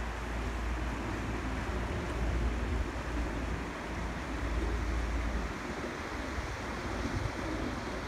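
Swift mountain river rushing over whitewater rapids, a steady rushing with no let-up, with wind buffeting the microphone in uneven low gusts.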